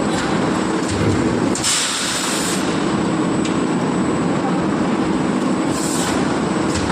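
Forging machinery running steadily and loudly, with a burst of hissing air about a second and a half in and another near the end.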